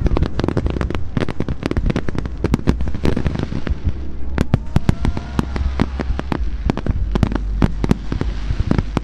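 Fireworks display: a dense, continuous run of sharp cracks and bangs over a low rumble, with faint whistling tones gliding up and down about halfway through.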